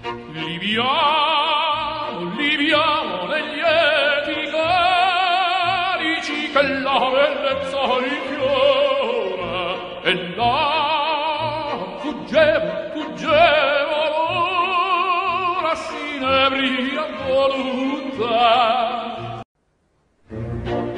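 Background music: an operatic voice singing with a wide vibrato over orchestral accompaniment. It stops abruptly about a second and a half before the end, then the music starts again.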